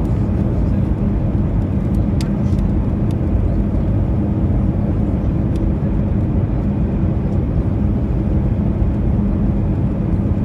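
Airbus A320 cabin noise: the steady rush of the jet engines and airflow, with a steady low hum underneath.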